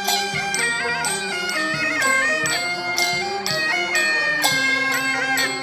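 Traditional Chinese music: a shrill, reedy wind melody over percussion strikes about once a second.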